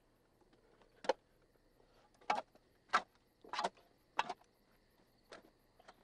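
Shovel digging into soil: six short scraping strokes, one every second or so, as the blade is driven into the dirt and earth is thrown out.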